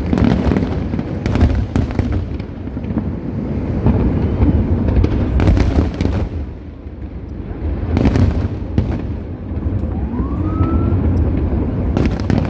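Aerial fireworks going off: a handful of sharp bangs with crackle, a few seconds apart, over a steady low rumble.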